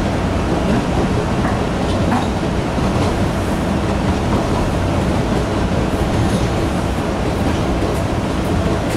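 MBTA Red Line subway train in motion, heard from inside the car: a steady rumble of wheels on rail with a few faint clicks.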